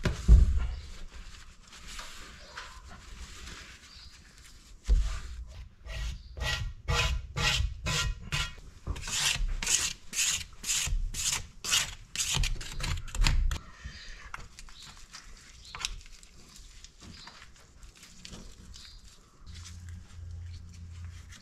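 Hand scraping and wiping of softened paint on a bronze fitting. A paper towel rubs over the metal, with a couple of low thumps. In the middle comes a quick run of scratchy scraper strokes, about two a second, and after that faint brushing and rubbing.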